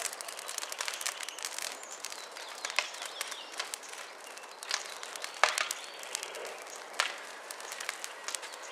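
Christmas tree burning in a metal drum, the fire crackling with frequent sharp pops and one louder snap about halfway through.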